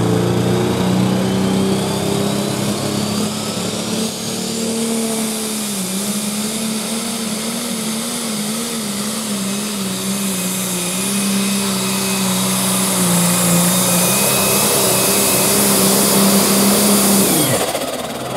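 Turbocharged engine of a John Deere super/pro stock pulling tractor running hard under load, with a high turbo whine that climbs over the first few seconds and holds. The engine note wavers in pitch as the tractor pulls, then drops sharply near the end as the throttle is cut at the end of the pull.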